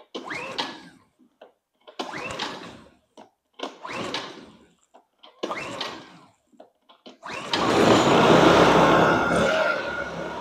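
Honda inverter generator being pull-started on choke after long storage: four pulls of the recoil starter, each a short rising-then-fading whir of the engine cranking over without firing, about two seconds apart. On the fifth pull, about seven seconds in, the engine catches and runs loud and steady, then settles to a quieter steady run near the end.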